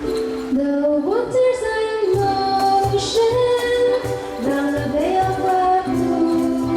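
Ukulele ensemble playing with women singing the melody; a steady low beat comes in about two seconds in.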